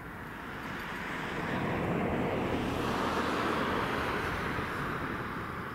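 Jet engines of a twin-engine airliner running on the runway, a steady rush that swells to a peak about two to three seconds in and then eases a little.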